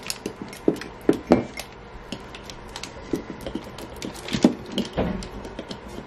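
Transfer tape crinkling as it is peeled and a plastic Cricut scraper rubbing and tapping over a vinyl decal on a ceramic mug: a run of irregular crackles and clicks, a few of them louder about a second in and again past four seconds.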